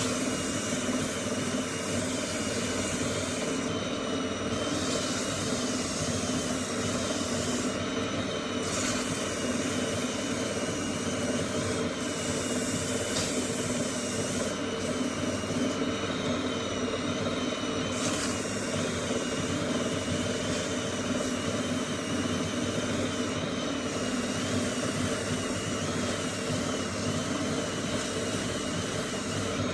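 Wood lathe motor running steadily, with the tool cutting the spinning wood while a small chair foot is turned.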